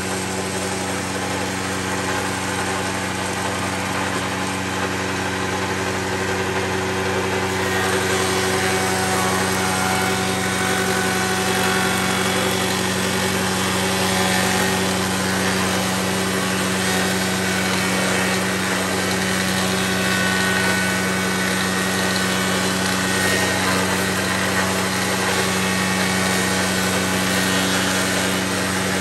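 Bench-top spindle moulder (wood shaper) running steadily, its spinning cutter head milling the edge of a wooden board as the board is fed past it, with a constant motor hum under the noise of the cut. It gets a little louder about eight seconds in.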